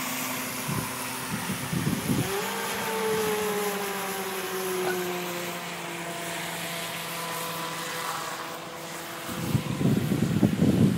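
The twin 380 brushed electric motors of a small RC speedboat whine at full speed. The pitch rises about two seconds in, then falls slowly. Near the end a louder rumbling noise takes over.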